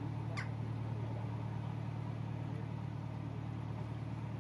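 Narrowboat engine running steadily at cruising speed, a constant low hum. About half a second in, a brief high whistle-like sound falls quickly in pitch.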